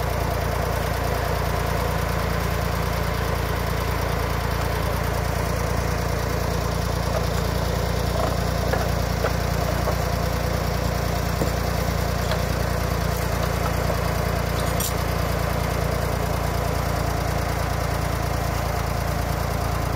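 Farm tractor engine idling steadily, with a single faint click about 15 seconds in.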